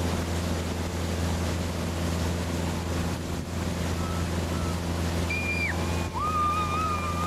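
Motorboat engine running steadily at towing speed, with the rush of its wake and wind on the microphone. A thin, steady high tone comes in near the end.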